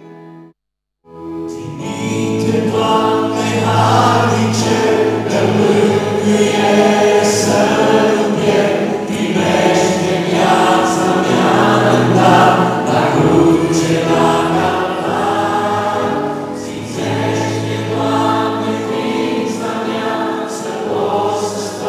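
A church congregation singing together, many voices holding long sung notes. The singing comes in after a moment of dead silence about a second in.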